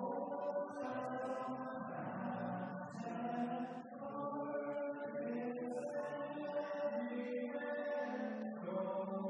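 Voices singing a slow hymn in long, held notes.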